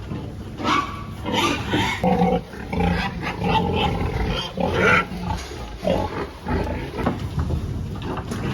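Several pigs grunting and squealing at once, irregular and overlapping, over a steady low hum.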